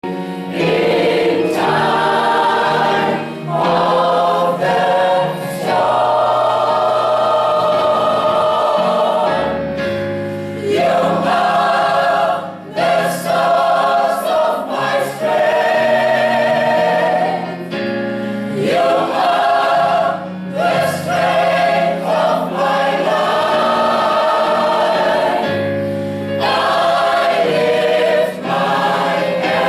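A choir singing, phrase after phrase, with short breaks between phrases.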